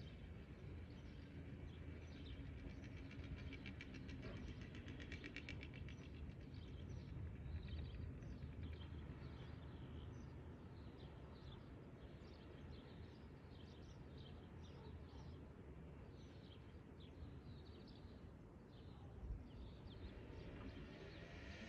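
Faint outdoor ambience: a steady low rumble with birds calling over it, first a rapid trill a few seconds in, then a long run of short high chirps, about one or two a second.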